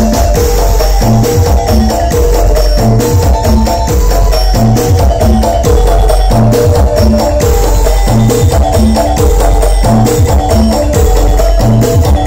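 Loud dance music played through a large carnival sound system: deep, heavy bass under a steady beat of quick hand percussion and a melody line.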